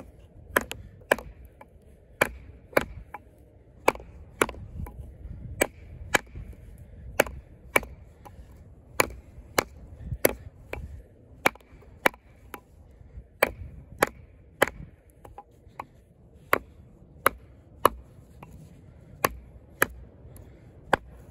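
A 420HC-steel fixed-blade clip point hunting knife chopping into a hard piece of wood: a steady series of sharp strikes, about one to two a second.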